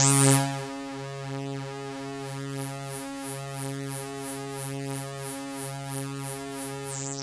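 A single low note held on a web synthesizer: two slightly detuned sawtooth oscillators through a resonant filter give a thick, beating tone. It is loudest in the first second. It then sustains with a pulsing tremolo and a high resonant warble about three times a second. Near the end the key is released and the note fades away into reverb.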